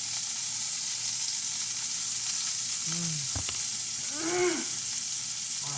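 Cheeseburger patties sizzling steadily as they fry in a pan.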